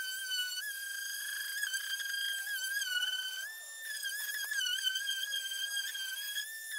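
Random orbital sander running on a car's primed hood, sanding out orange peel: a steady high-pitched whine that wavers as the pad is pressed and eased, rising briefly about three and a half seconds in and again near the end.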